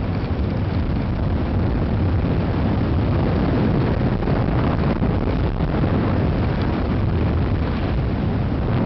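Steady, loud wind rush over the camera's microphone at downhill skiing speed, mixed with skis running over freshly groomed corduroy snow.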